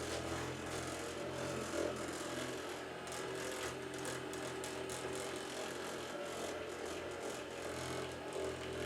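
Handheld percussion massage gun running steadily, its motor humming as the head is pressed into the shoulder and upper-back muscles.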